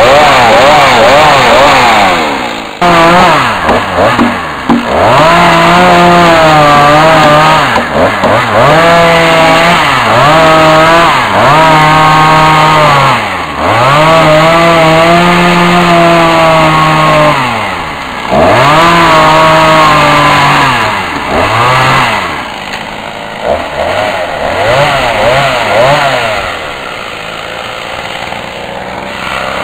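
Two-stroke chainsaw cutting into a squared log at high revs, its pitch dropping again and again as the chain loads up in the wood and picking back up between cuts. Over the last several seconds it runs quieter at lower revs.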